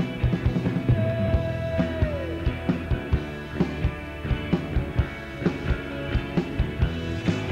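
Live rock band playing: drum kit, electric guitars and bass, with a steady beat of drum hits. A held note slides down in pitch about two seconds in.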